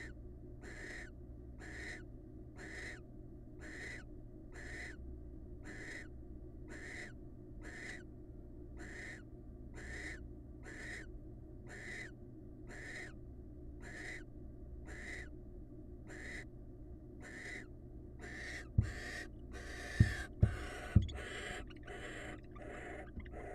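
Barn owl giving a rasping, hissing call over and over, about once a second. Near the end the calls come faster and overlap, and a few loud thumps break in.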